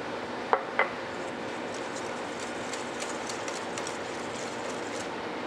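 Egg yolks and powdered sugar being mixed into a thick paste in a bowl: a steady scraping noise, with two light clicks just under a second in.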